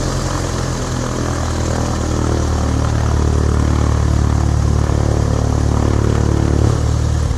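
A loud, steady, mechanical-sounding low drone with a rushing hiss over it, holding level throughout.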